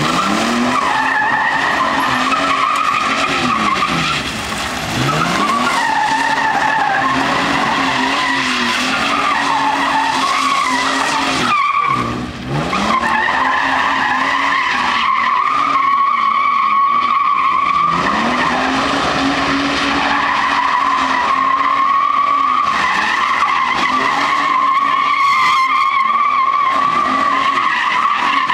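Toyota Tacoma X-Runner pickup's V6 engine revving high while the rear tyres squeal without a break through donuts. The revs sag and climb back several times, most deeply about twelve seconds in.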